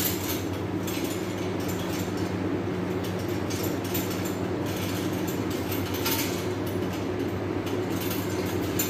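Steady low machine hum, with a few faint scrapes as a knife works meat off a hanging mutton carcass.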